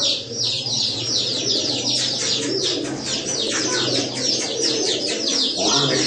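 Many birds chirping rapidly and without pause in short falling notes, with pigeons cooing low beneath.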